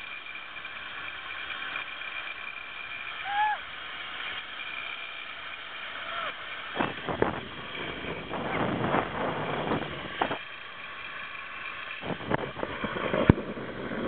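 Zip-line trolley running along the steel cable: a steady whirring hiss with wind on the microphone. About halfway through it gives way to irregular buffeting and rattling as the rider comes in over the landing area.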